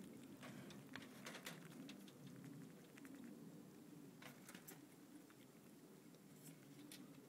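Faint scattered clicks and scratching of degus moving about on wood-pellet bedding and wire mesh, over a faint low hum.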